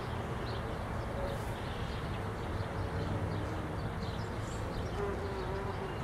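Honeybees buzzing steadily around an open hive as comb frames are handled.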